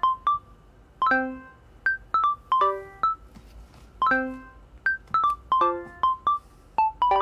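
Background music: a light, plucky tune of short struck notes, like a piano or bells, each fading quickly, in a phrase that repeats about every three seconds.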